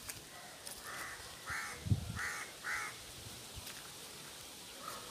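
A crow cawing four times in quick succession, with a low thump about two seconds in.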